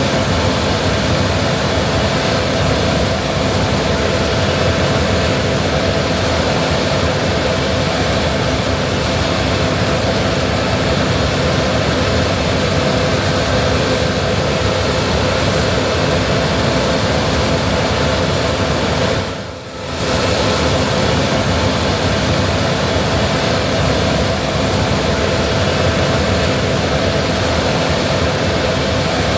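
Gleaner R65 combine harvester running under load while harvesting wheat: a steady drone of engine and threshing machinery with a constant hum. The sound dips briefly about two-thirds of the way through, then carries on as before.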